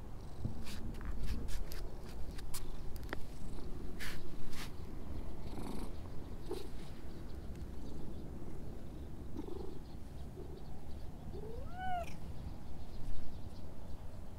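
A stray domestic cat purring steadily as it is stroked, with one short meow that rises and falls near the end. Scattered sharp clicks sound in the first few seconds.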